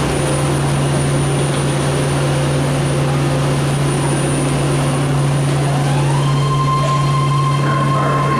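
BART train running with a loud steady rumble and low hum; about six seconds in, an electric whine rises in pitch and then holds steady as the train picks up speed.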